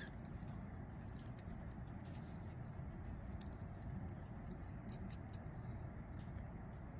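Faint, scattered light clicks and ticks of small metal folding-knife parts being handled and fitted by hand, over a steady low hum.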